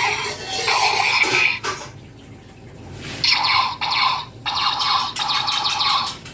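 Mattel Zurg robot toy playing electronic sound effects through its small speaker in short, abrupt bursts, with a quiet gap of about a second partway through.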